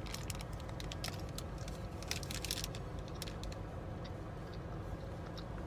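Light clicks and crackles of a snack bar being bitten and chewed in its crinkly wrapper, thinning out after about three seconds, over a steady low hum in a car cabin.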